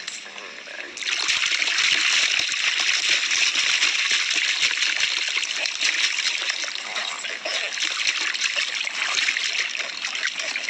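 Water splashing and pouring in a steady rush that swells suddenly about a second in.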